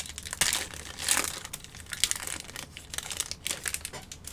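Crinkling of a foil trading-card pack wrapper as the pack is torn open and handled, in irregular crackles.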